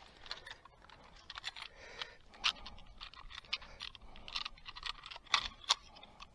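Scattered light clicks, taps and rustles of fishing gear being handled and rummaged through, with a few sharper clicks about two and a half and five and a half seconds in.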